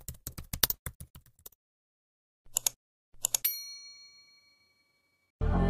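Keyboard-typing sound effect: a quick run of clicks, then two short clicks and a bell-like notification ding that rings on and fades. Music starts near the end.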